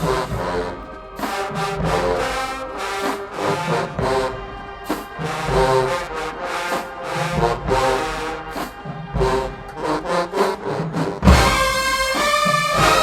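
Marching band brass and drums playing: a brass melody punctuated by drum strokes. Near the end a heavy drum hit brings the full band in louder.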